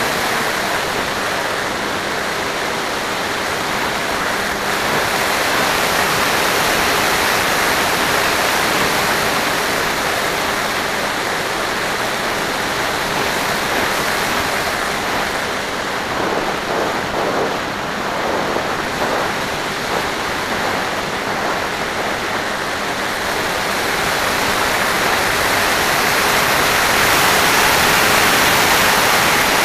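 Steady rush of airflow over the onboard camera microphone of an FPV aircraft in flight, with the faint, steady hum of its motor and propeller underneath. It grows a little louder near the end.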